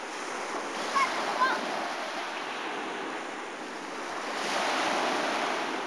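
Small sea waves breaking and washing up the beach, a steady surf that swells about four and a half seconds in as a wave comes in. Two short high-pitched cries cut in about a second in.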